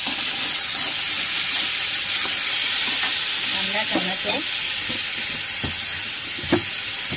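Chopped onion and tomato sizzling steadily in hot oil in a kadhai as they fry in a tadka of cumin and curry leaves. Two sharp knocks sound near the end.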